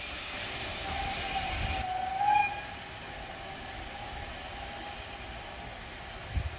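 Steam locomotive whistle sounding one long, steady note that swells briefly about two seconds in, over the low rumble of a train on the move.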